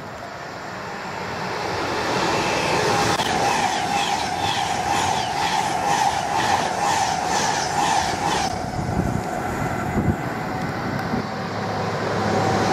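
Class 390 Pendolino electric train passing at speed, a rushing sound with a steady tone and a regular clacking of wheels over rail joints about twice a second. The sound breaks off abruptly about two-thirds in, and near the end a Class 221 Super Voyager diesel train approaches, growing louder.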